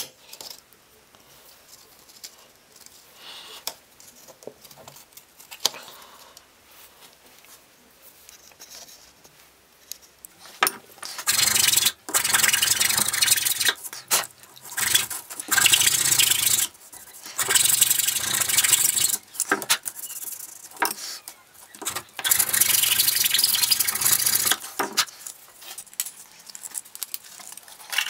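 About ten seconds of light handling clicks, then a run of rasping strokes in bursts of a second or two with short pauses between them: a hand file working along the edges of a P40 sanding belt's glued joint to clean off the excess at the seam.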